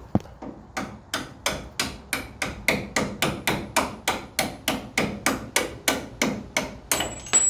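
Steady hammering on metal, about four blows a second, driving a seized front-suspension part out. A harder blow comes near the end.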